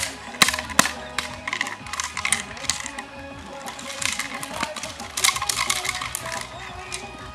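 Background music with sharp cracks and clicks spread across it.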